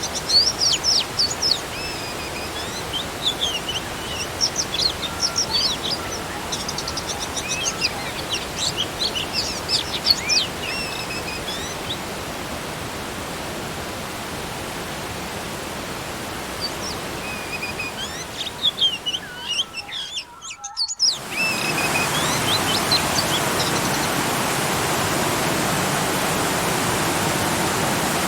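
Birds chirping over the steady rush of a small garden waterfall. The chirping is busy at first and thins out. After a brief dropout about two-thirds of the way through, the rush of water is louder and the birds mostly fall silent.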